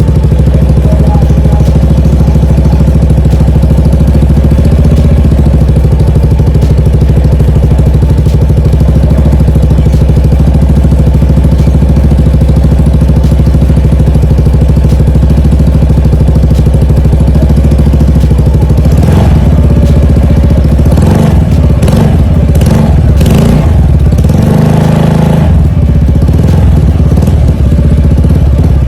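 Yamaha NMAX scooter's single-cylinder engine idling steadily through an aftermarket Burnout full-system exhaust. About two-thirds of the way in, the throttle is blipped several times in quick succession before the engine settles back to idle.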